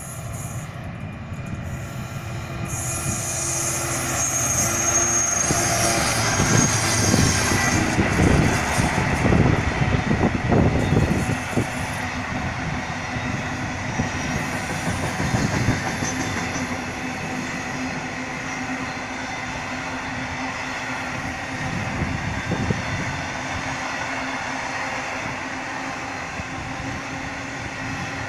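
Freight train of loaded bogie hopper wagons passing close by behind a locomotive. The sound builds to its loudest about six to twelve seconds in as the locomotive and first wagons go by, with knocks from the wheels. Then the wagons run on past in a steady rolling rumble.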